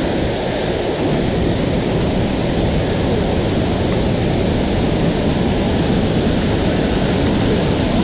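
Waterfall pouring into its plunge pool: a loud, steady rush of falling water.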